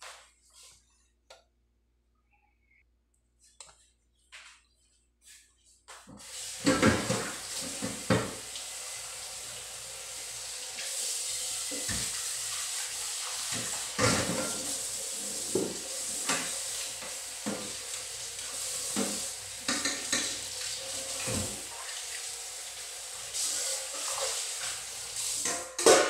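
Kitchen tap running into a stainless-steel sink while pans and dishes are washed, with repeated clatter and knocks of metal pans against the sink. The water starts about six seconds in; before that there are only a few faint clicks.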